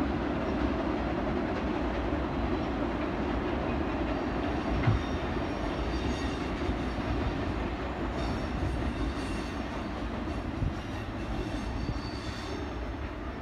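Ringling Bros. circus train's flatcars rolling across a tall steel trestle bridge, a steady rumble of wheels on the bridge deck, with a single sharp knock about five seconds in.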